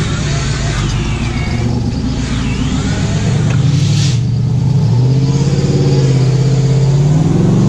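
Engine of a tube-framed competition off-road 4x4 working hard through deep mud, its revs rising and falling from about five seconds in.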